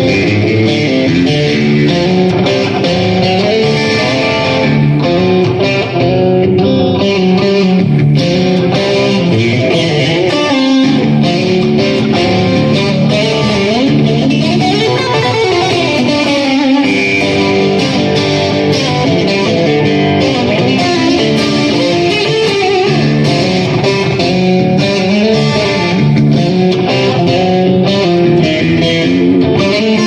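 Stratocaster electric guitar played through an amplifier rig, a continuous stream of notes and chords, with a run that climbs and comes back down about halfway through.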